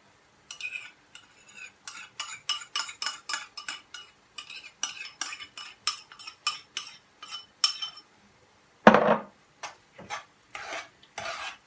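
Metal spoon scraping the inside of a ceramic bowl in quick, ringing strokes as tomato sauce is scraped out into a frying pan. Near the end there is one louder knock as the empty bowl is set down, followed by a few strokes of stirring in the pan.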